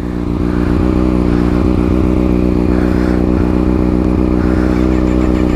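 2018 Kawasaki ZX-6R 636's inline-four engine idling steadily through its Akrapovic slip-on exhaust, the engine speed holding even.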